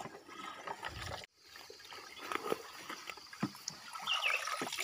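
Water trickling and dripping out of a perforated plastic jug eel trap as it is lifted from the water, with small clicks and rustles of plants. The sound cuts out abruptly about a second in and picks up again, growing louder near the end.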